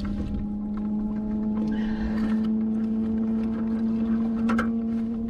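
A boat engine running steadily, a constant hum, with wind rumble on the microphone and a brief click near the end.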